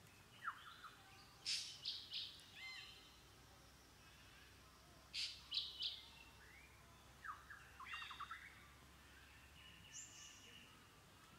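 Birds calling in several short bursts of quick chirps and downward-sliding notes, with pauses between the bursts.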